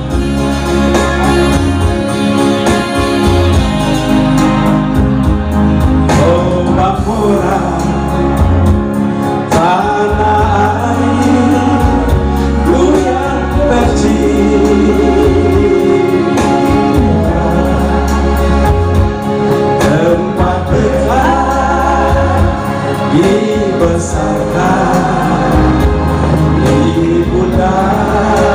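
Live song: an electronic keyboard plays chords over a steady bass line, and singing comes in about six seconds in and carries on over the accompaniment.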